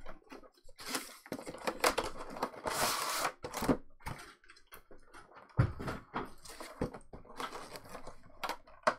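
Cardboard packaging torn and slid open, then a clear plastic blister tray handled: irregular scraping, crinkling and clicking, with a single thump a little past halfway.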